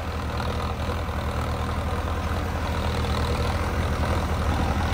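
Diesel engines of two tractors, a Mahindra Arjun Novo 605 DI and a New Holland 3630 TX, running steadily under load as they pull cultivators in four-wheel drive at a fixed throttle. The low engine note gets a little louder near the end.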